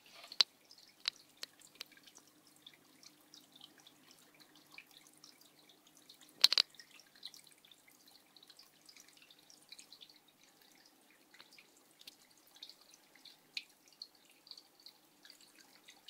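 Water from a small home-made vivarium waterfall dripping and splashing into a shallow tray in irregular, quick drips, with a faint steady low hum beneath. A louder sharp click about six and a half seconds in.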